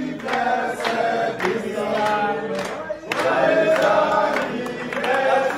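A group of men singing a birthday song together in chorus, with hand claps keeping time about twice a second.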